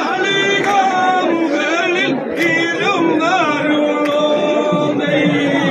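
A group of men singing vanchipattu, the Kerala boat song, in long wavering held notes, with a sharp strike that keeps the beat roughly every second and a half.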